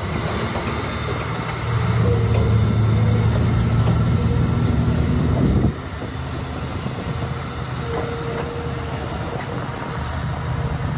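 Diesel engine of a laden Tata 3718 14-wheeler tipper truck running steadily under load as the truck pulls away. The engine note drops suddenly about six seconds in and stays quieter.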